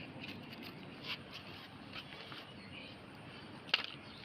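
Plastic litter being handled and pulled loose, giving a few short rustles and crinkles, with one sharp click near the end.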